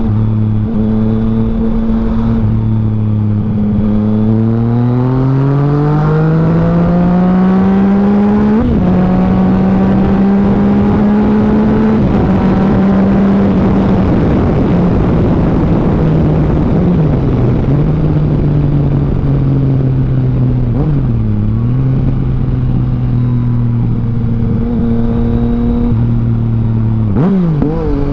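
Yamaha Tracer 900's three-cylinder CP3 engine through an Akrapovic full exhaust system, heard on the move: a steady cruising note, then a climb in revs for about four seconds up to a gear change. After that it holds speed under a heavy rush of wind, with the pitch stepping down a few times as the throttle eases in the second half.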